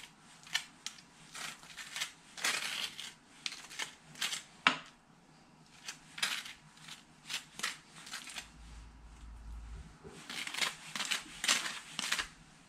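A metal knife spreading tzatziki over a waffle: a run of short, uneven scraping strokes, the knife scraping across the waffle's ridged surface.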